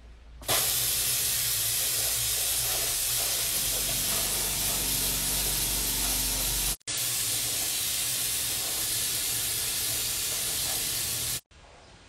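Drying air blowing through a homemade hair-washing machine's tank onto wet hair: a loud, steady hiss with a low hum underneath. It starts abruptly about half a second in, breaks off for an instant midway, and cuts off shortly before the end.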